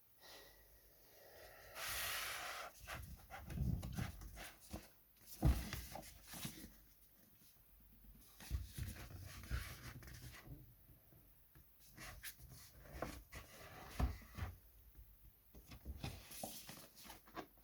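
Faint handling of a GoPro Hero 9 Black retail box: scattered taps and knocks, with a short rustle about two seconds in.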